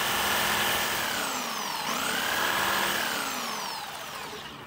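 Electric jigsaw cutting into Douglas fir, making relief cuts: a steady motor whine whose pitch dips about a second in, comes back up, then falls away as the saw winds down near the end.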